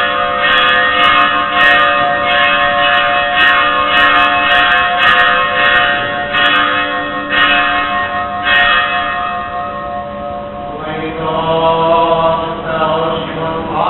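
Church bell struck repeatedly, roughly once a second, with a long ringing tone that fades after about nine seconds. A voice begins chanting about eleven seconds in.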